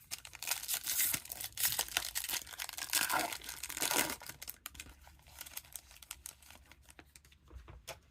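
Plastic foil wrapper of a Bowman baseball card pack being torn open and crinkled, a dense crackling for the first four or so seconds, followed by a few light clicks and rustles.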